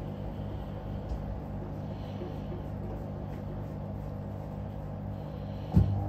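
Hoover Electronic top-loading washing machine spinning through its spray rinse: a steady motor hum and drum rumble, with a single sharp thump near the end. The cold-water solenoid valve is failing, so the rinse spray is weak.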